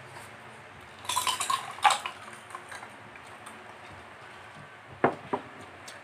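Dishes and tableware clinking and knocking: a quick run of clinks about a second in, the loudest near two seconds, then two sharp knocks about five seconds in.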